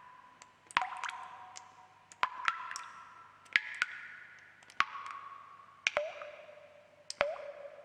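Water drops dripping one at a time, about once a second, each a sharp plink with a short ringing tone, some gliding upward; the pitch of the ring changes from drop to drop.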